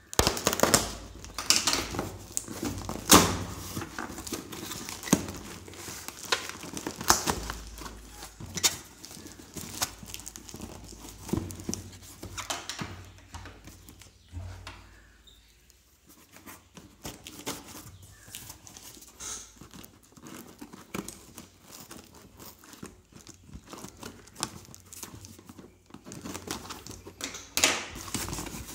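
Plastic courier wrapping and tape on a cardboard shipping box being cut with scissors and torn open by hand: irregular sharp rips and snips over steady crinkling and rustling of plastic and cardboard. It goes quieter for a while past the middle, with a cluster of louder rips near the end.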